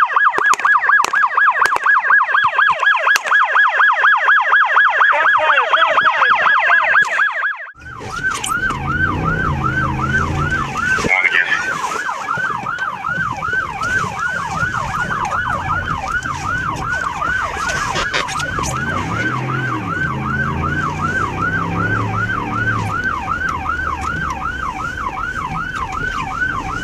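Police siren sounding in quick, repeated up-and-down sweeps. About eight seconds in it breaks briefly, then carries on in a slightly slower sweeping cycle over a low rumble.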